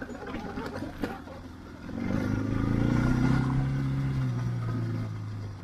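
Adventure motorcycle engine pulling hard as the throttle opens about two seconds in, its note rising and then easing off near the end, over wind and tyre noise on a wet gravel road. A couple of sharp knocks sound in the first second or so.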